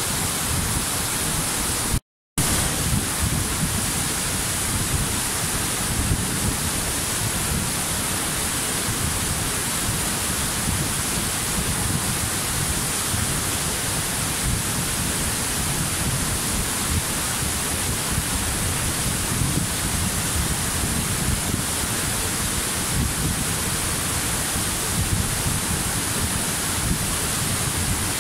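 Waterfall: a steady, full rush of falling water, broken by a split-second gap of silence about two seconds in.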